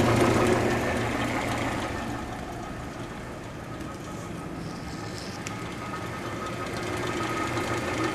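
The 1931 Frigidaire refrigerator's compressor and its electric drive motor running steadily on a fresh R-152a charge, a quiet mechanical hum that dips a little after the first couple of seconds and grows again near the end.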